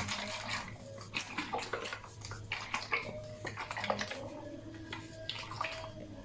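Carton of Amul fresh cream being shaken and poured into a saucepan: liquid sloshing and splashing, with irregular small taps and clicks of the carton and pan.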